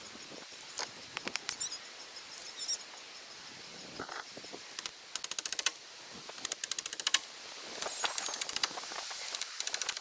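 Impact driver driving screws into slab-wood boards: several short bursts of rapid rattling hammering, each under a second long, with pauses between.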